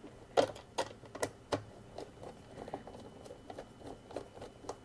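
Light clicks and taps of a plastic electronics case being handled: the top cover of a CANdi interface module pressed into place and its small screws driven in with a hand screwdriver. A few sharper clicks come in the first second and a half, then fainter ticks.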